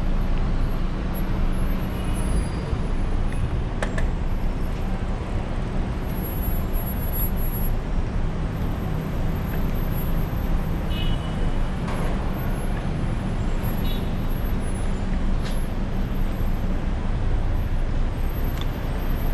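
Steady road traffic noise with a low rumble of wind on the microphone, heard while cycling along a road, with a low engine hum and a few faint clicks.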